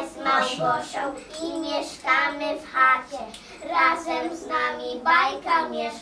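A group of young children singing together in unison.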